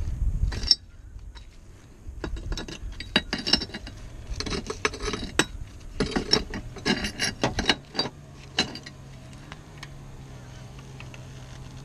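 Metal clinking, rattling and scraping in quick clusters as a piece of sheet-metal flashing is worked in among concrete roof tiles. A low steady hum comes in about two-thirds of the way through.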